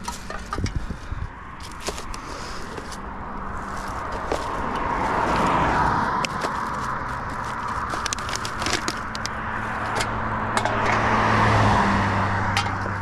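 Two cars passing on the road one after the other, each rising and fading as it goes by, the second about six seconds after the first, with engine hum under it. Light clicks and crackles of plastic litter being handled close by.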